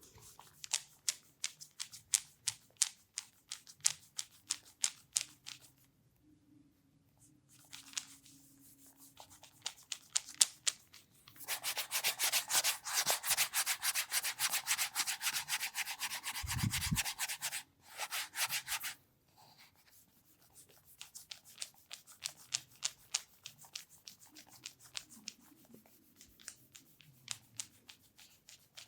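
Hands massaging with oil, rubbing over skin and hair in rhythmic strokes of about two to three a second. From about twelve seconds in there is a louder, fast continuous rubbing for about seven seconds, and then the slower strokes return.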